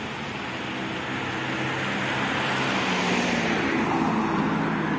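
A car driving past close by, its tyre and engine noise swelling as it approaches and loudest about four seconds in, over steady road traffic.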